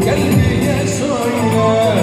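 A man singing live into a microphone over band accompaniment, amplified through a PA, his voice gliding in ornamented runs over a steady beat.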